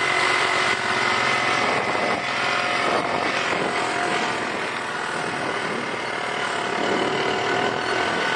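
Four-wheeler (ATV) engine running steadily while riding over a dirt track, its pitch wavering slightly, with rough rumble and wind noise.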